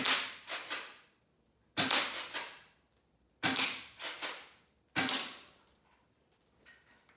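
Airsoft gun firing four BB shots about a second and a half apart. Each sharp crack is followed by a smaller clack about half a second later.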